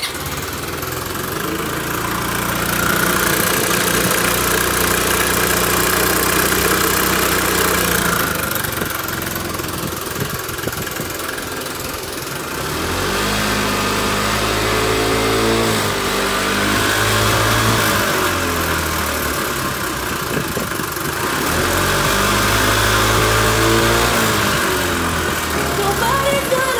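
Kymco Racing King 180 scooter's single-cylinder engine starting abruptly and running, revved up and back down twice, with an abnormal noise that the owner suspects comes from a damaged starter clutch or a broken cam chain tensioner.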